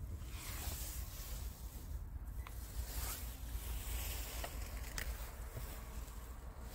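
Rustling from a handheld camera being moved around, with a few faint light clicks over a low, uneven rumble.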